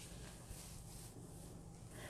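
Very quiet room tone with a faint steady low hum.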